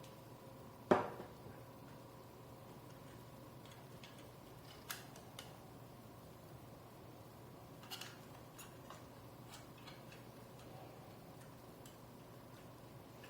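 Small laptop parts and tools being handled during a drive swap: one sharp knock about a second in, then scattered light clicks and taps, over a faint steady hum.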